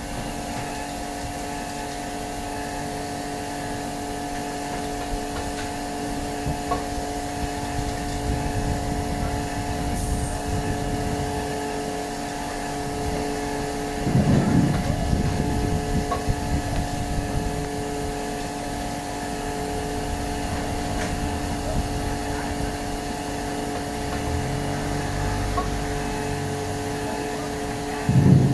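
Mobile fruit press running: a steady machine hum with several held tones over a low rumble, while pressed apple pomace is discharged from the press. A louder low rumble comes about halfway through, and a short loud low thump right at the end.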